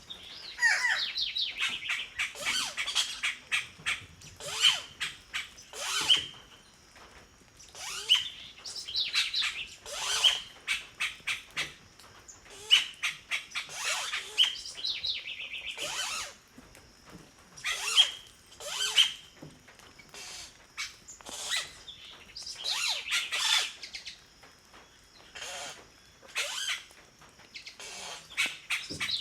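Birds calling in quick series of short calls, several a second, in bursts with brief pauses between them.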